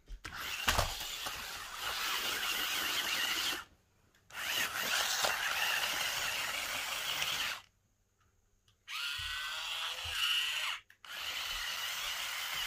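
Hornet double-sided stunt RC car's electric drive motors and gearboxes whining as it drives, in four runs separated by short stops. The whine rises in pitch a little after nine seconds in.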